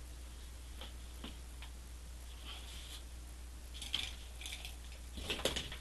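Paintbrushes clicking and clattering against each other in a crowded jar as brushes are pulled out, a cluster of clicks about four seconds in and a louder one near the end, after a few faint ticks, over a low steady hum.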